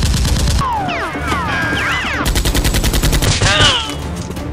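Two bursts of rapid automatic gunfire, one at the start and one about two seconds in, with gliding whistle-like tones in between.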